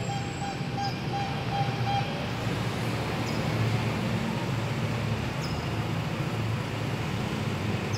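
Twin-engine propeller plane flying overhead: a steady low drone of engines and propellers.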